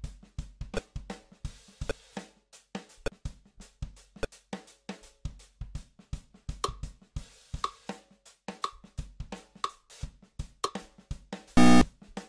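Background music with a steady drum-kit beat. Near the end a short, loud buzzer sounds, the time-up signal of a quiz countdown.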